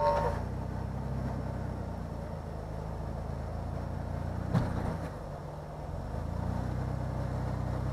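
Jeep Wrangler four-door's engine running steadily at low revs as it crawls over boulders, with one sharp knock about halfway through.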